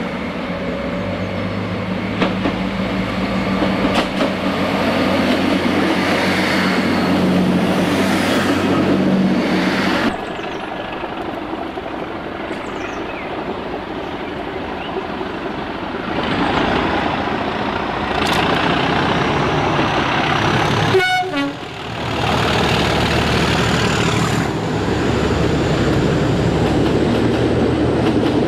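Trains on a multi-track railway: a diesel multiple unit's engine drones steadily as it approaches, then a noisier rumble builds as a locomotive-hauled train nears. After a brief dropout with clicks about three quarters through, a Metropolitan line electric train rolls past close by, its wheels rumbling over the rails.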